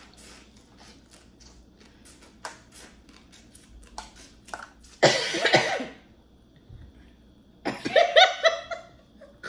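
Small clicks and smacks of crawfish shells being peeled and sucked at the table, then a cough about five seconds in, and a short burst of laughter near the end.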